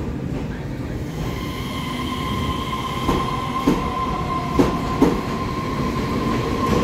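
A Taiwan Railway EMU3000 electric multiple unit pulling out of the station and gathering speed. It rumbles with a steady electric whine, and its wheels knock over the rail joints faster and faster from about halfway through. Near the end a tone rises in pitch as it accelerates.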